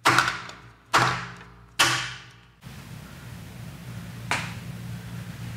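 A MuteMe button, a small stainless-steel-topped mute device, slammed hard onto a tabletop three times in under two seconds, each a sharp bang with a short ringing tail. Then a steady low hum with a single soft knock.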